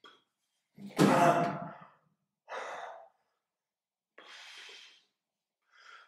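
A man sighing and breathing out audibly several times, short separate breaths with brief silences between them. The first, about a second in, is the loudest and begins with a sharp click.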